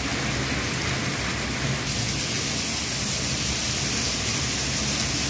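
Heavy rain pouring onto a concrete courtyard floor, a steady hiss and splatter that gets brighter and hissier about two seconds in.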